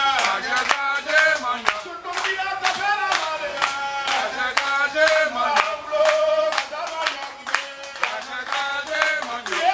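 A man singing into a microphone with hand drums and a small crowd clapping along on a steady beat.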